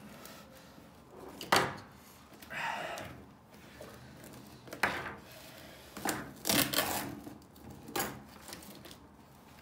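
Handling noise from pliers being worked at wires inside a cardboard box: a few sharp clicks and knocks, a cluster of them about six to seven seconds in, with cardboard and tool rustling between.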